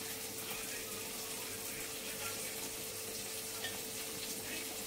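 A steady hiss with a constant low hum, and faint rustling and light clinks of chopped vegetables being tossed by hand in a steel bowl.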